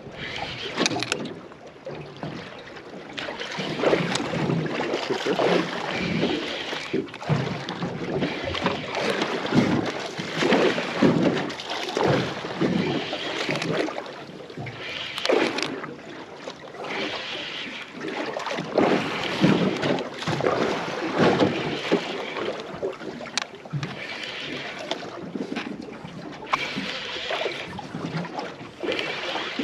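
Water slapping and lapping against the hull of a small aluminium boat, in uneven surges, with a few sharp clicks or knocks.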